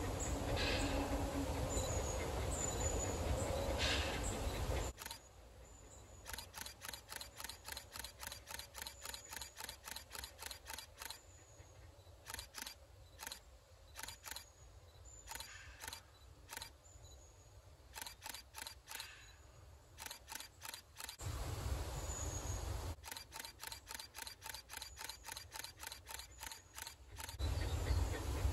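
Camera shutter firing in rapid continuous bursts, several clicks a second, in runs of a few seconds with short pauses, starting about five seconds in and stopping near the end. Before and between the bursts, a low outdoor rumble with a few faint bird chirps.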